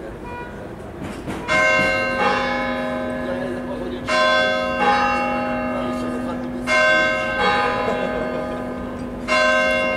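Church bells being struck: two bells of different pitch sound one after the other in pairs, about every two and a half seconds, starting about a second and a half in. Each strike rings on with a long hum until the next.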